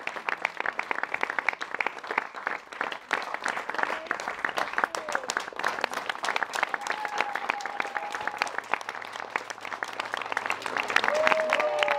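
Audience applauding: dense, continuous clapping from many hands that keeps on without a break, with a few pitched calls heard over it about two-thirds of the way in and near the end.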